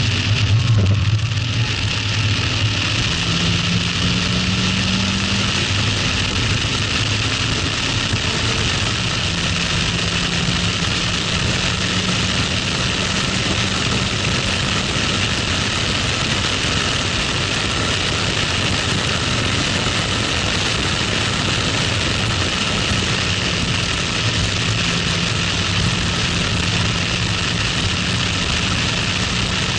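Toyota MR-S's 1ZZ-FED 1.8-litre four-cylinder engine, stock intake and exhaust, running hard at high revs, heard from the open cockpit under loud wind rush. Its pitch dips briefly about a second in, then climbs and holds high as the car accelerates.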